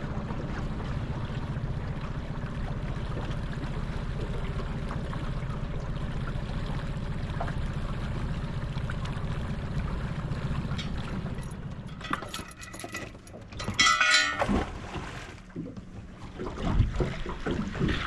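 Small aluminium boat's Yamaha outboard motor running steadily at low speed. About twelve seconds in the engine note drops away and a few short, louder, higher-pitched sounds come before it turns noisier near the end.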